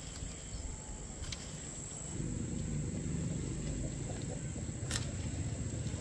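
Steady high-pitched insect chirring over low rumbling noise that gets louder about two seconds in, with two sharp clicks, one about a second in and one near the end.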